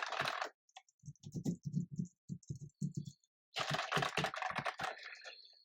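Typing on two keyboards in turn, a Logitech MX Mechanical and a regular MX Keys, to compare them. A run of dull, low keystrokes gives way about three and a half seconds in to a quicker, sharper clatter.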